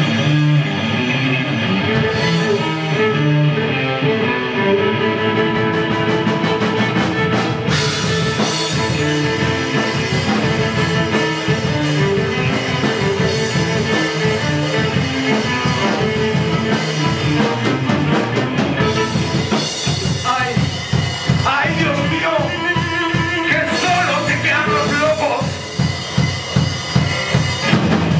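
Live instrumental rock: drum kit, electric guitar and violin playing together. Sustained notes at first, then busy drumming from about six seconds in; in the last third, sliding high notes come over the drums.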